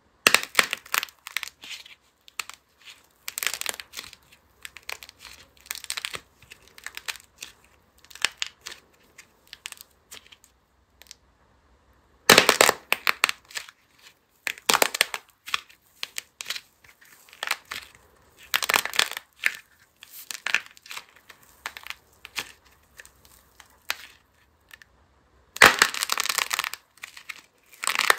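A capsule of crumbly blue clay with a shiny purple coat being cracked and crushed between the fingers. Irregular runs of crisp crackles and crunches, with the loudest breaks about twelve seconds in and again near the end.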